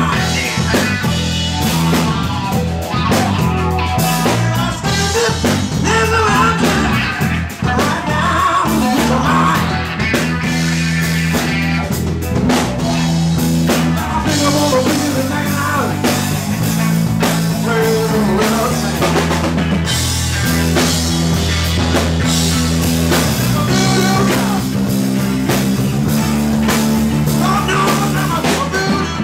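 Live rock band playing a blues-rock passage: electric guitar over a drum kit.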